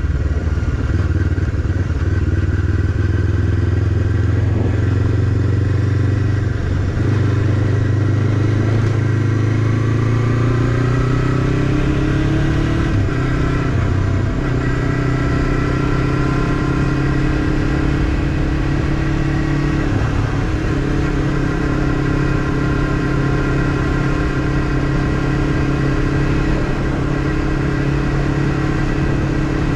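Honda CBF500 parallel-twin engine under way, climbing in pitch as the bike accelerates, dropping back at a few gear changes, then running steady at cruising speed. In the first few seconds the tyres rattle over cobblestones.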